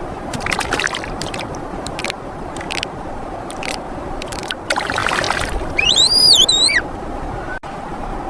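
An animal gives a single high, wavering call about a second long, rising and falling in pitch, about six seconds in. It sounds over a steady wash of water-like noise with scattered clicks and splashes.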